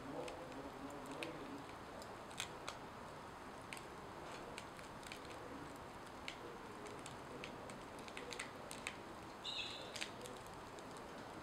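Faint, scattered crackles and ticks of a corn tortilla scorching and smoking on a hot metal griddle, over a steady low hiss. A brief high chirp sounds near the end.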